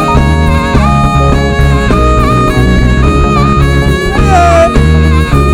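Live band playing an instrumental passage without singing: a steady bass and drum groove under sustained melody lines, with one note sliding about four seconds in.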